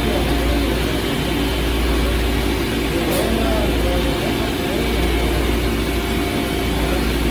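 CNC Swiss-type lathes and their bar feeders running on a shop floor: a steady machine hum with several constant tones over a noisy wash, at an even level throughout.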